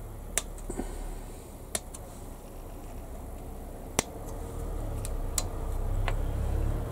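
Sprue cutters snipping plastic model-kit parts off their sprue: about five sharp, separate snips a second or more apart. A low rumble builds up under them in the second half.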